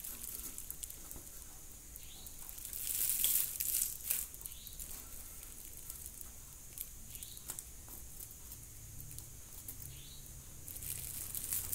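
Scattered rustling and scraping as hands handle a thin jumper wire on the sheet-metal back panel of an LED TV backlight. It is loudest about three seconds in and again near the end, with faint ticks between.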